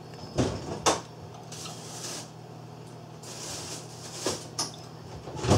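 Java sparrow pecking and tugging at a komatsuna leaf in its wire cage: a handful of sharp knocks and clicks with two short spells of leafy rustling between them.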